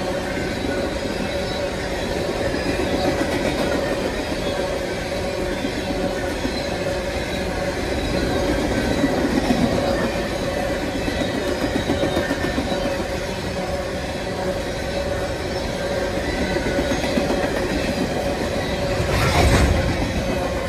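A freight train of empty coal hopper cars rolling past, its steel wheels rumbling and clacking over the rail joints with a steady squeal. A louder rush comes near the end, then the sound begins to fade as the last cars go by.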